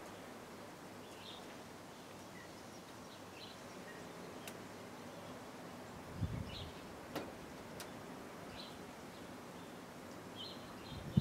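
Faint outdoor garden ambience with short, distant bird chirps every couple of seconds, a few faint clicks and a soft low bump about six seconds in.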